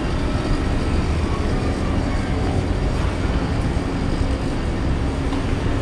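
Steady, even rumbling noise of the outdoor city background, with no distinct events.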